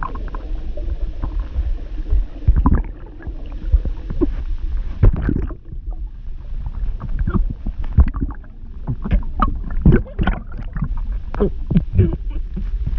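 A voice actor imitating drowning underwater: irregular gurgles, bubbling and muffled "mmph" sounds, over a steady low rumble.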